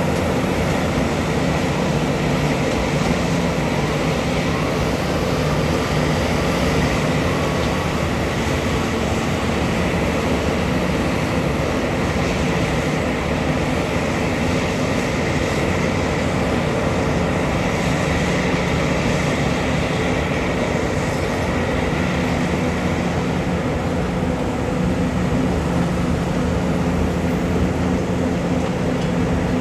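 Heavy diesel mining machinery, a large hydraulic excavator and haul truck, running steadily under load, with an even, unbroken engine note.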